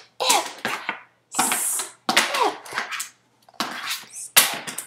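A woman's voice sounding out word parts in a drawn-out, exaggerated way: hissing 's' sounds alternating with short voiced syllables, in four short runs.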